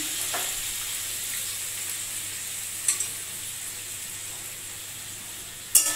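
Bean and potato curry sizzling in its separated oil in a steel kadai just after the gas is turned off, a steady hiss slowly dying down. There is a light tap about three seconds in and a sharper knock near the end.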